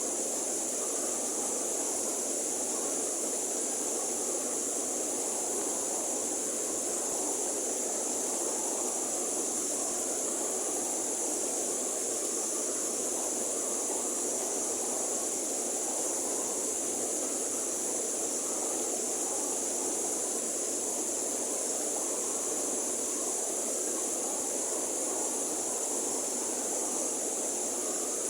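River water flowing steadily, with an even rushing noise and a constant high-pitched hiss above it.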